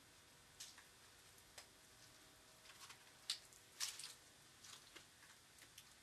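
Faint, irregular clicks and crackles, a few louder ones about three to four seconds in.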